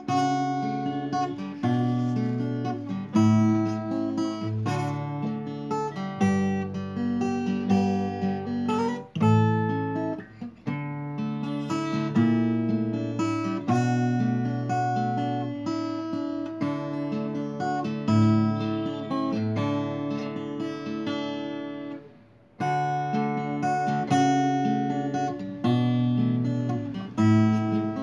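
Background music on acoustic guitar, strummed and picked chords, with a brief drop-out a little over three quarters of the way through before it picks up again.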